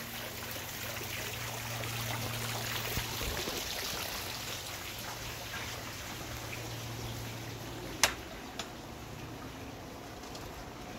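Tiered garden fountain splashing steadily as water spills from its bowls into the basin. A single sharp click about eight seconds in.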